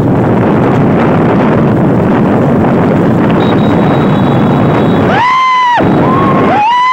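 Loud wind rush on the microphone and vehicle running noise while riding along a dirt road. Near the end, two short high-pitched tones about a second apart cut through it.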